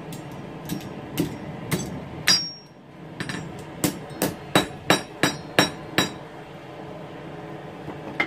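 Hand hammer striking hot steel on an anvil: about a dozen sharp blows, roughly two a second, each with a brief metallic ring, with a short pause about two and a half seconds in and the blows ending about six seconds in. The steel is an old file being bent into a hook for a letter opener.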